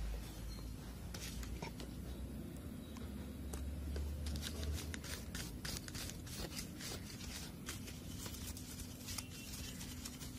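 Brush scrubbing a laptop's keyboard connector on the motherboard: faint scratchy rubbing with many small clicks, thicker in the second half, over a low rumble that fades about halfway. The connector is being cleaned because it may be shorting after a liquid spill.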